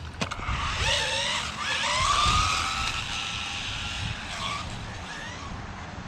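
Electric Rlaarlo 1/12-scale RC buggy's motor whining, rising and falling in pitch as it speeds up and lets off, with tyre noise underneath. The whine is strongest in the first half and then eases off.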